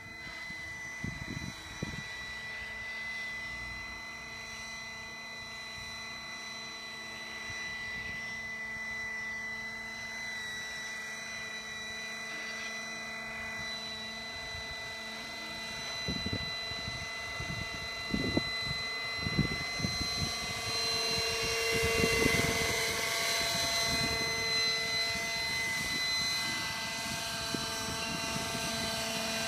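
Radio-controlled scale Gazelle helicopter flying: a steady high-pitched whine from its rotor and fenestron tail fan, getting louder about two-thirds of the way through as it comes in low and close, with a few low thumps.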